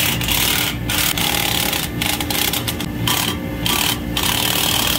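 Cordless impact driver with a socket on a long extension, hammering in a series of bursts with brief pauses, backing out the bolts that hold the suction service valve on a Trane screw compressor.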